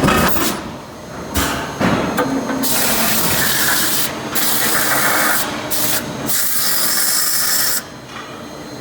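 Forging machinery on a hot-forging line for steel hex head plugs: a steady machine hum, a couple of sharp knocks early on, then long hissing stretches that stop shortly before the end.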